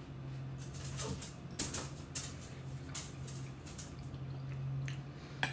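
A person chewing a mouthful of hot casserole: soft, scattered mouth clicks and smacks over a steady low hum.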